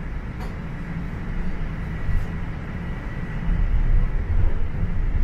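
Inside a Toronto Rocket subway car on Line 1, rumbling as the train pulls out of the station, with a faint steady whine in the middle. The rumble grows louder about three and a half seconds in.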